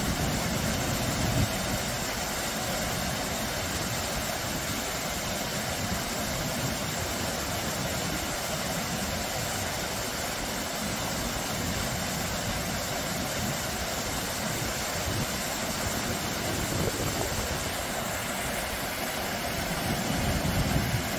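Water from a small, low waterfall spilling over rock ledges into a shallow stream: a steady rushing splash. A low rumble swells briefly in the first second or two and again near the end.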